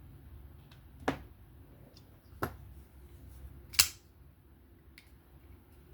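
Three sharp clicks about a second and a half apart, the last the loudest. They come from the blade of a folding knife being worked open and closed on its freshly reassembled, still loose pivot.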